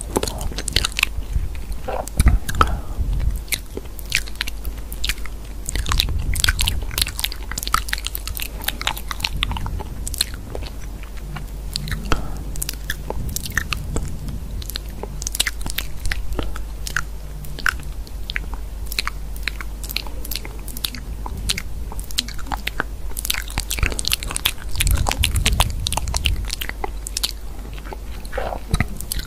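Close-miked crunching and crisp clicking in a dense, irregular stream, over a steady low hum.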